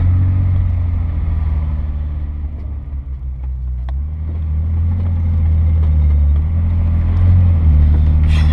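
Car engine and road noise heard from inside the cabin while cruising: a steady low drone that eases off about three seconds in and builds back up over the following seconds.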